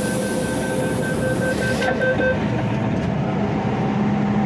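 MTR M-Train electric multiple unit heard on board, with a steady hum and rumble. A rapid electronic beeping and a loud high hiss run over it, and both cut off about two seconds in.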